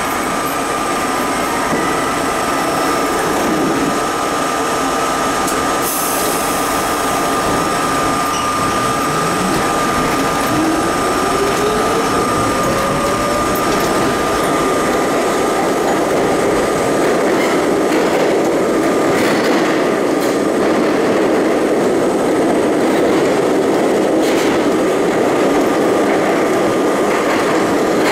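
R32 subway train pulling out of a station and picking up speed: a steady high whine, a short burst of hiss about six seconds in, then the traction motor whine climbing in pitch as it accelerates. After that, steady wheel-on-rail running noise builds, with scattered clicks over the rail joints.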